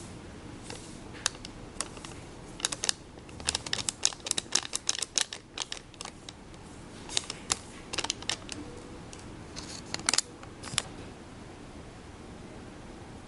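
Irregular small clicks and taps of plastic being handled as the candy kit is worked: a quick flurry of them a few seconds in, then scattered taps near the middle and a short cluster later on.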